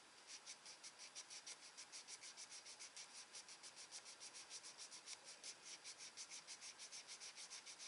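Fingertips rubbing quickly back and forth over the card of a small paper box, about six faint scratchy strokes a second, smoothing down a glued-on paper panel.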